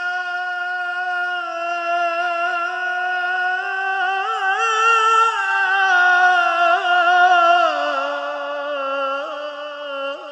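A single unaccompanied voice singing a long, wavering melismatic line of an Arabic nasheed; the pitch rises around the middle and sinks lower near the end.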